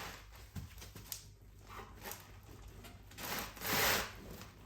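Suspension parts being worked by hand as the spring top cap is fitted onto the front strut: several short rubbing and scraping sounds, the longest and loudest about three seconds in.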